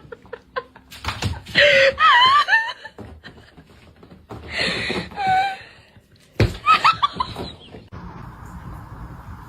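A person laughing in loud bursts, with squealing pitch, and a knock about two-thirds of the way through, followed by a run of quick laughs. A steady low background noise takes over near the end.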